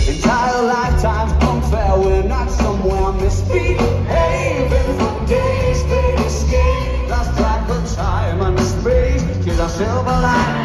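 Live rock band playing loud through a concert PA: electric guitars, bass guitar and a drum kit, with singing.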